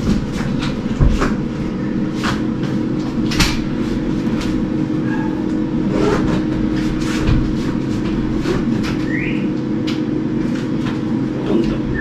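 Large stainless-steel French-door refrigerator being pushed along the floor on its casters: a steady rolling rumble broken by irregular knocks and clicks.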